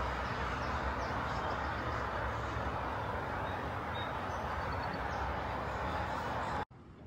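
Steady road-traffic noise, a continuous rushing hiss over a low engine hum, with a few faint high chirps; it cuts off suddenly near the end.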